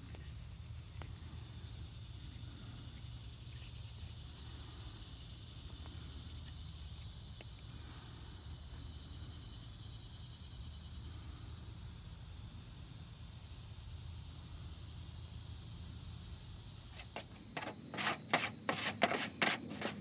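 Steady, high-pitched chirring of insects with a low background hum. About 17 seconds in, the chirring stops abruptly and a run of short rustles and knocks follows as wood shavings are handled.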